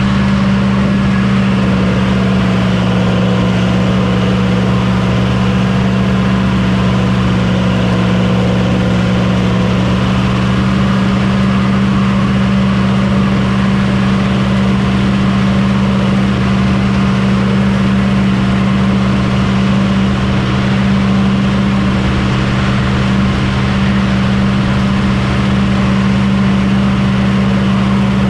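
Combine harvester's diesel engine running at a constant speed, a steady low hum that does not change.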